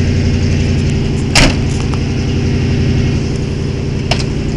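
1979 Ford F-150 pickup engine idling steadily, its vacuum leak fixed. A single loud thump comes about a second and a half in, and a smaller sharp click near the end.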